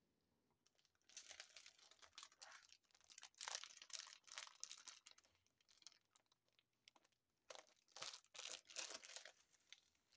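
Clear plastic wrapping crinkling as hands pick it up and handle it, in irregular bursts with a short lull about two-thirds of the way through.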